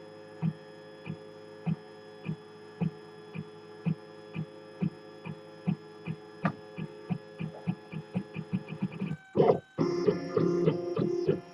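3D printer's stepper motors whining as the print head travels back and forth, with a short pulse at each change of direction that speeds up from about two a second to about four. In the last couple of seconds the motors get louder and busier.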